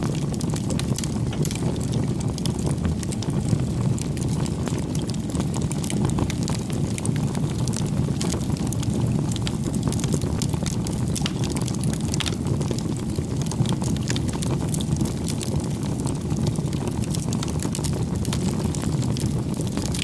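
Campfire crackling: many small sharp pops and snaps over a steady low rumble of burning wood.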